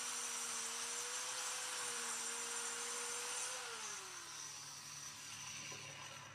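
Handheld 4-inch electric cutter machine (circular saw) cutting along a wooden plank with a steady whine, then switched off about three and a half seconds in, its motor winding down with falling pitch.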